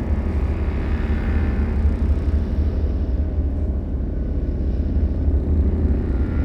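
Low, dark horror ambience drone: a steady, deep rumble with faint high ringing tones that swell in near the start and again at the end.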